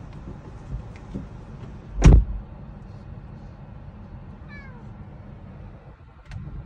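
A domestic cat gives one short meow falling in pitch around the middle, over a low steady hum. A loud dull thump about two seconds in is the loudest sound, as one cat rises up against the car window.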